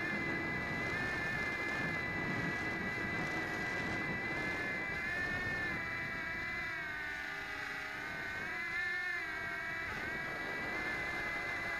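MJX X800 hexacopter's motors and propellers whining in flight, heard up close from a keychain camera mounted under the craft. The pitch wavers as the throttle is worked to hold a hover, sagging for a few seconds in the second half and then climbing again.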